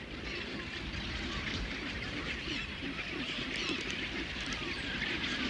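Mixed seabird nesting colony of penguins, albatrosses and cormorants: a dense din of many overlapping squawks and honking calls.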